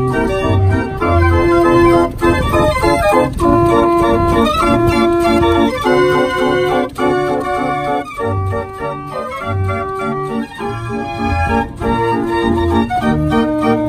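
Hand-cranked Dutch street organ playing a tune from perforated cardboard book music, with bass notes repeating under the melody.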